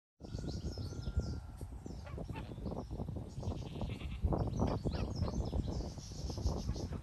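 A flock of domestic geese honking and gabbling in short, overlapping calls, over a low rumble.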